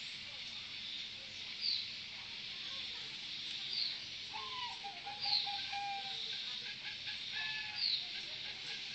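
Zebra dove (merbok) cooing in broken, trilling phrases, clearest about halfway through. Another bird gives short high calls falling in pitch about every two seconds, over a steady high hiss.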